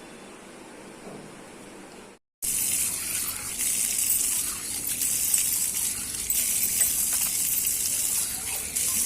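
Faint steady hiss, then after a short break about two seconds in, water running hard and steadily, splashing with small clicks.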